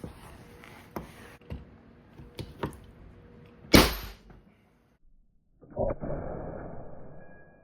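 A few small clicks of a Ramset powder-actuated nailer being handled and set against the padlock, then one sharp, loud bang about three and a half seconds in as its .22-calibre powder charge fires a nail into the padlock. After a short gap comes a fainter noisy sound that fades away.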